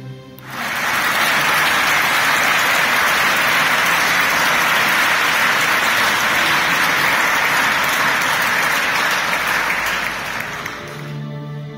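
A large congregation applauding in a church: dense, steady clapping that starts about half a second in and dies away near the end as music comes back in.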